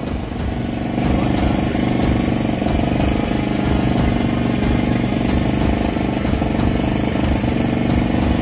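An engine running steadily at an even pitch, a continuous low drone.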